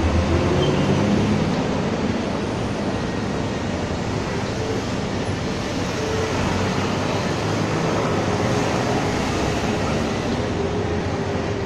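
Steady, loud city street noise, like passing traffic, with no break or distinct event.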